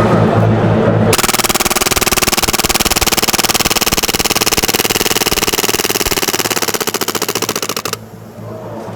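Gas-blowback airsoft gun run on regulated HPA or CO2 through a regulator that simulates green-gas pressure, firing one continuous full-auto burst of rapid, even shots. The burst starts about a second in and stops abruptly about seven seconds later.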